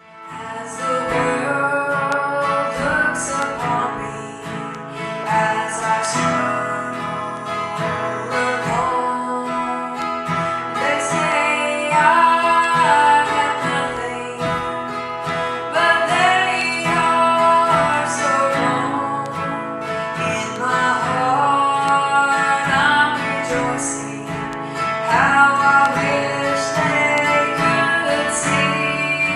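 Music with guitar, in a country or gospel style, playing without a break.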